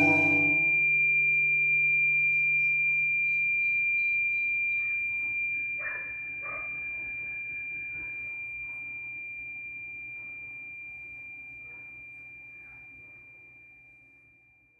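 A single metal chime bar ringing out after being struck, one high pure tone that slowly fades away, while the last guitar-and-voice chord dies out in the first moments. Two faint knocks come about six seconds in.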